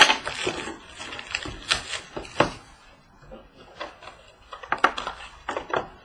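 Trading card packs and cardboard boxes being handled on a table: an irregular run of sharp clicks, taps and short rustling scrapes, busiest near the start and again about two-thirds of the way through.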